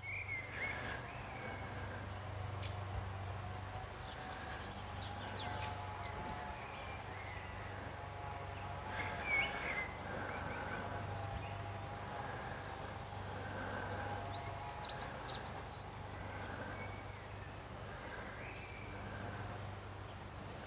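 Faint outdoor ambience: small birds chirping, with a high, thin trilled song twice, about a second in and near the end, over a steady low hum.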